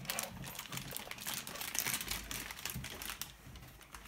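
Clear plastic packaging bags crinkling as they are handled and cut open with scissors: an irregular run of small sharp crackles and rustles.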